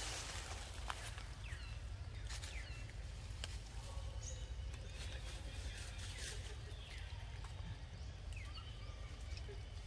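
Outdoor forest-floor ambience: a steady low rumble under a few sharp rustles or clicks, with several brief faint chirps falling in pitch scattered through.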